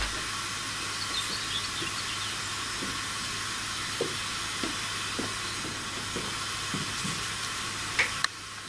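Steady, even background hiss with a few faint soft knocks and a small click near the end; no gunshot.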